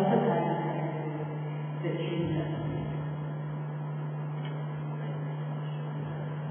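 Steady low electrical mains hum from the sound system, with snatches of a voice at the start and about two seconds in.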